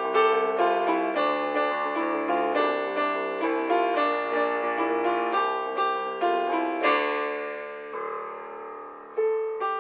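Solo piano music rendered from music software: chords and melody notes struck in a steady flow, then a chord held and left to fade about seven seconds in, with new notes starting just before the end.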